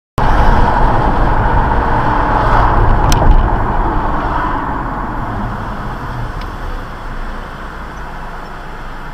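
Road and tyre noise of a moving car heard from inside the cabin through a dash cam's microphone. It is a steady rushing that starts suddenly, is loudest at first, eases off over a few seconds, then holds level, with one sharp click about three seconds in.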